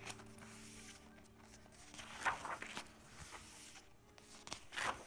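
Glossy pages of an album photobook being turned by hand: a soft paper swish about two seconds in and another near the end, over faint background music.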